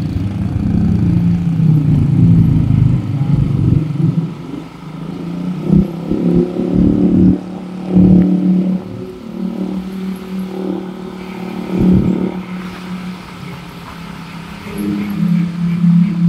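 Motorcycle engine running steadily while it is ridden, its hum swelling and easing with the throttle, with wind rumbling on the microphone.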